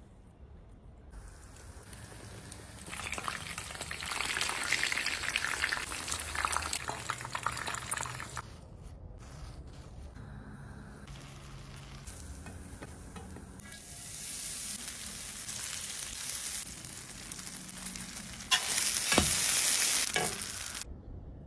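Breaded chicken cutlets frying in hot oil, sizzling in several separate stretches that start and stop abruptly, loudest near the end.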